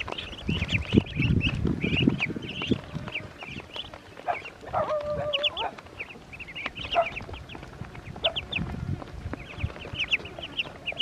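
A flock of Muscovy ducklings peeping: many short, high chirps all the time, with a longer wavering call about five seconds in and low bumps and rustling from the birds close by.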